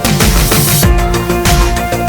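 Background music: electronic track with a fast, heavy drum beat and sustained synth notes.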